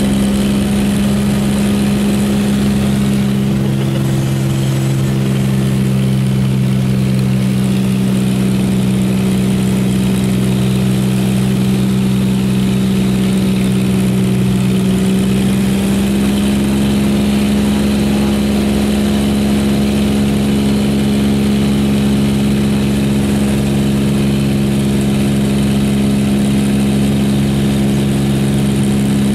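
A light aircraft's engine and propeller drone steadily, heard from inside the cabin. The tone changes slightly about halfway through.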